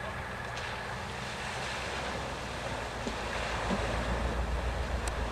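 Rushing, splashing water with a low vehicle engine rumble that grows louder past the middle, and wind buffeting the microphone.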